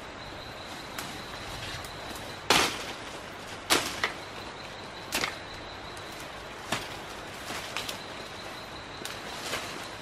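Sharp woody cracks of bamboo-undergrowth stems being cut: four loud ones a second or so apart, then several softer ones. A steady high insect whine runs underneath.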